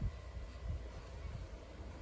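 Wind buffeting the microphone: an uneven low rumble that comes and goes, over a faint steady outdoor hiss.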